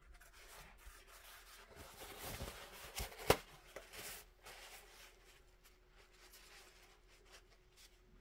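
Paintbrush loaded with acrylic rubbing and scrubbing on a surface in short scratchy strokes, with a sharp tap a little over three seconds in.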